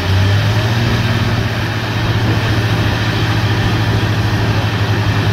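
Engine of a DTH borewell drilling rig running steadily with a low, even, rapid pulse.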